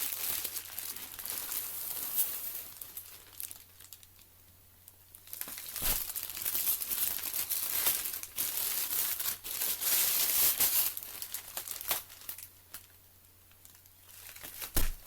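Parcel packaging being torn open and crinkled by hand: two long stretches of rustling and tearing with a short pause between, then a few scattered crackles near the end.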